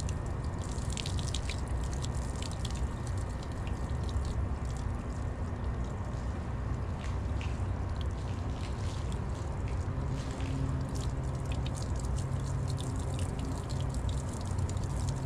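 Hose spraying rinse water over a yacht's fibreglass deck and bow, with splashing and dripping, over a steady low rumble.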